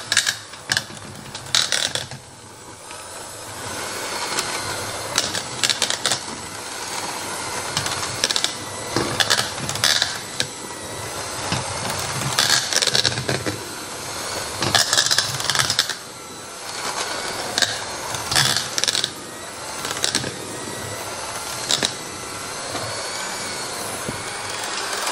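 Electric hand mixer running steadily as its beaters mash hot boiled potatoes in a speckled enamel pot, with frequent sharp clicks and knocks as the beaters strike the pot.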